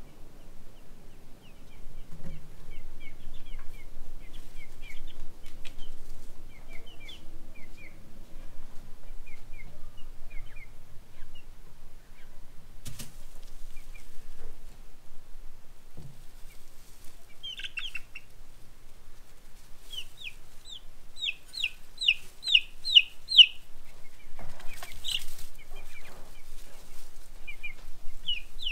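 Baby chicks peeping: short high chirps scattered throughout, with a fast run of loud peeps about three-quarters of the way through. A couple of sharp knocks cut in, the loudest just after the run of peeps.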